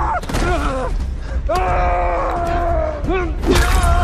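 Two men grunting and groaning with strain as they grapple on the ground, in long drawn-out cries that sag in pitch, with a few sharp hits in between.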